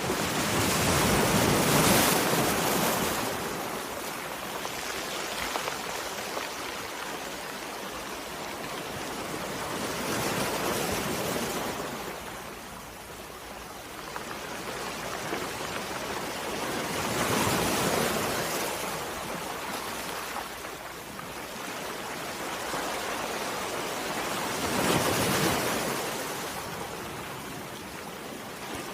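Gentle sea waves lapping on a shore: a steady wash of surf that swells as each wave comes in, about every seven to eight seconds.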